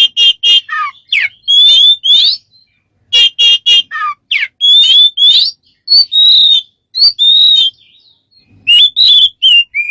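A bird calling loudly in a rapid string of short whistled chirps and quick trills, many notes sliding up or down in pitch, broken by two short pauses, one about two and a half seconds in and another near eight seconds.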